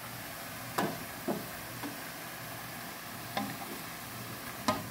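Sliced opo (bottle gourd) strips sizzling in an aluminium pan as a wooden spatula stirs them, with about five sharp knocks of the spatula against the pan, the loudest near the end.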